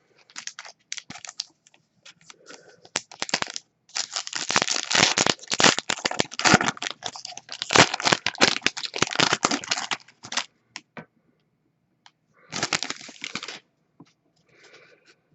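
Crinkling and crackling of a hockey card pack's wrapper and cards being handled, in dense runs through the middle and a shorter run near the end.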